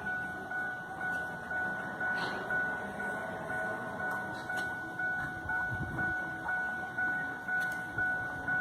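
An electronic warning tone: a steady high beep pulsing about twice a second, over a low rumbling background.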